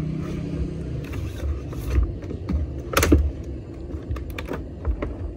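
Clear plastic clamshell packs of screwdriver bits being pried open and handled, giving scattered clicks and crackles with one sharp snap about three seconds in. A low steady hum fades out within the first second, over a constant low background rumble.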